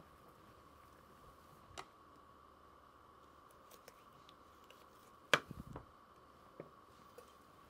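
A butcher's knife cutting a wing off a whole raw chicken on a wooden cutting board, with a faint steady hum behind. There is a small click about two seconds in, then a sharp crack and a few soft knocks about five seconds in.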